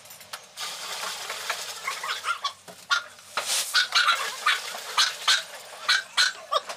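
Domestic animal calls: a run of short cries that come thicker and louder after about three seconds.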